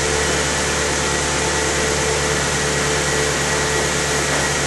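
Volkswagen Passat's engine idling steadily as it warms up after a battery-disconnect reset of its computers, a low hum under a steady rushing noise.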